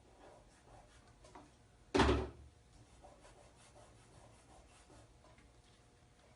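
Hands working a vinyl decal and masking tape on the front of a wineador: faint rubbing and handling noises, with one short, loud thump about two seconds in.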